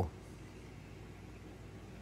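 Steady low hum and hiss of workshop background noise, with no hammer blows.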